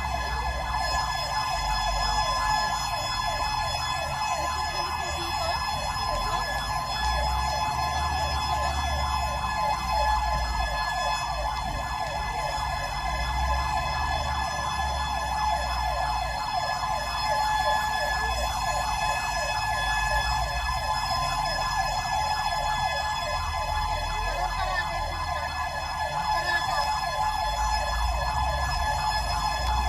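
Emergency vehicle siren sounding continuously in a fast, even warble, over a low vehicle rumble.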